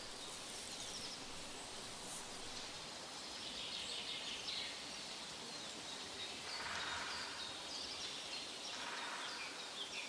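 Quiet outdoor ambience: a steady hiss with scattered faint bird chirps.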